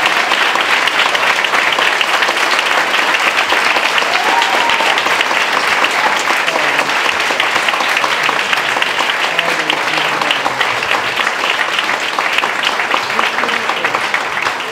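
Audience applauding steadily: a dense, even clapping from a large crowd.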